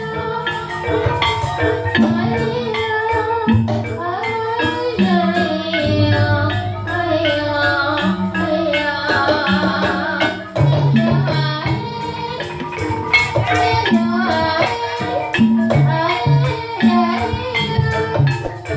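Banyumasan gamelan playing: bronze-barred metallophones (saron) ring out the melody in a steady pulse over drum strokes and gong. A woman sings along into a microphone.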